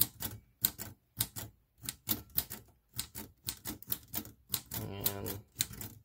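1930s Royal manual typewriter being typed on key by key, the typebars striking in a quick, uneven run of sharp clacks, about three a second. Some of its typebars tend to stick, which the owner puts down to the machine needing a cleaning.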